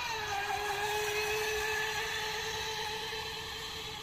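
Electric brushless motor of a radio-controlled speedboat on a 3S battery, running at speed with a high, steady whine. The pitch drops a little at the start, then holds and fades slightly toward the end.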